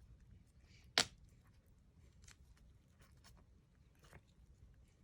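Small objects being handled at a work table: faint scattered ticks and taps, with one sharp click about a second in.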